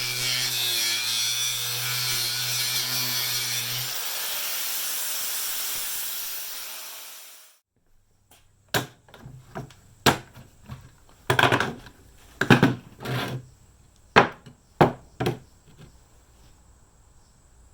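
A power tool cutting through the ladder's mounting plate along a marked line, running steadily and cutting off about seven seconds in. This is followed by about a dozen sharp knocks and clanks spread over several seconds.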